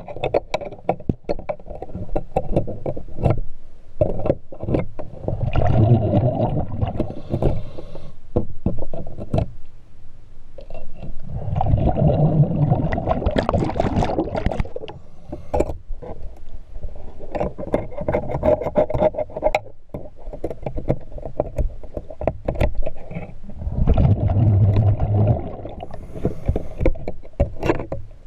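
Underwater, a diver's exhaled bubbles rush out in four bursts about six seconds apart. Between them comes a steady stream of sharp clicks and knocks from hands working at the boat's propeller.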